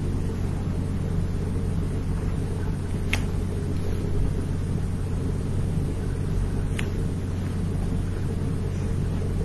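Steady low hum and rumble picked up by the computer's microphone, with two brief clicks about three and seven seconds in.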